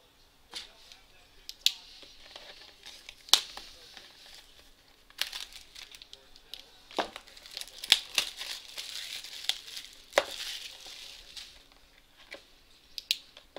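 Cellophane shrink-wrap being slit and peeled off a cardboard trading-card box: plastic crinkling and tearing, thickest in the middle, with scattered sharp clicks and snaps of the box being handled.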